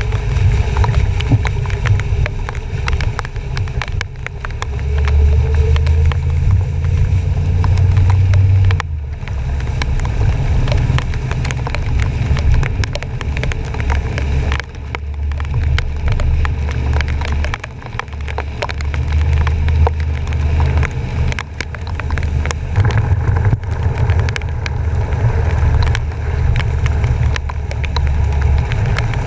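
Truck driving through flooded streets in heavy rain, heard from a camera on its front bumper: a steady low rumble of driving through water, with dense small clicks of rain and spray striking the camera.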